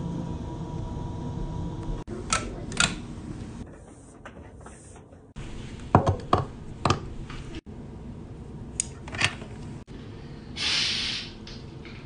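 Household handling sounds from several short clips cut together: scattered sharp clicks and knocks over a low room hum, and a hiss lasting about a second near the end.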